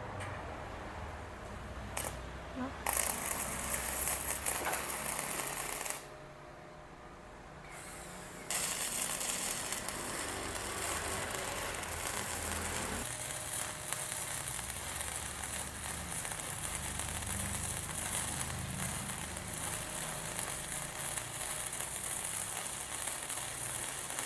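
MIG welding arc crackling as a bead is run on thick steel at about 140 A. A short tack comes about two seconds in, then a run of about three seconds, a pause, and a long unbroken run of about sixteen seconds, which gives a weld with deep penetration.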